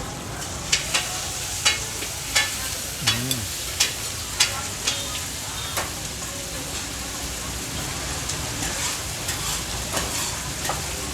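Steady sizzle of bột chiên (fried rice-flour cake) frying in oil in a large pan, with a quick series of sharp metal clinks over the first half and fewer after.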